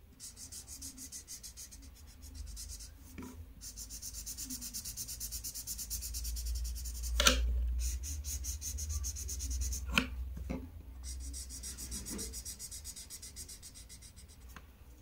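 Felt-tip marker scribbling on paper in quick back-and-forth strokes, colouring in a shape, with a few light knocks along the way.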